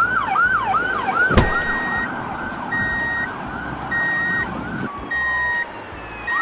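Emergency-vehicle siren wailing in fast repeated falling sweeps, about two a second. A sharp click comes about a second and a half in, followed by short steady beeps about once a second. The sweeping stops about five seconds in, leaving a slow falling tone and then a rising one.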